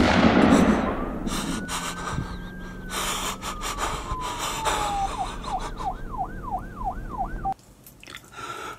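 A loud bang's echoing tail dies away in the first second, then a siren sounds: one long wail that rises and slowly falls, then a fast up-and-down yelp about three times a second, which cuts off suddenly near the end.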